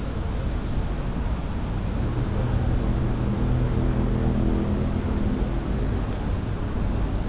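An engine hums as it passes, swelling from about two and a half seconds in and fading away by about five and a half, over steady background noise.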